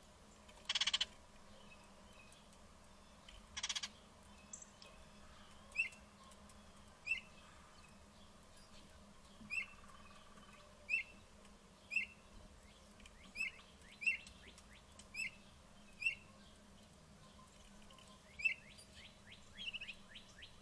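Short high animal chirps, repeated about once a second, over a quiet outdoor background. Two louder rasping calls come in the first four seconds.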